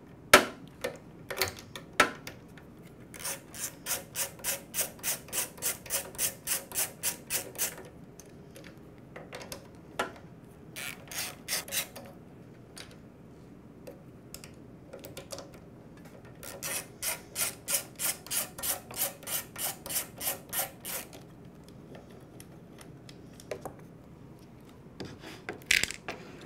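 Socket ratchet clicking in two runs of quick, even clicks, about four or five a second, as the bolts holding a lawnmower's plastic air filter base are loosened, with scattered small clicks and knocks of parts being handled between the runs.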